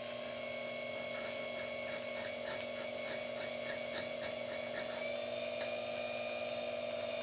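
Small clockmaker's lathe motor running at a steady whine, with light, regular filing strokes on the spinning end of a clock wheel arbor. The stump of a clipped-off worn pivot is being filed flat before it is center-drilled for a new pivot wire.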